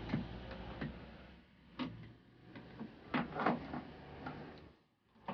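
Hard plastic clicks and knocks as a car's windscreen cowl panel is worked loose from its plastic retaining clips, a handful of sharp clicks spread over a few seconds.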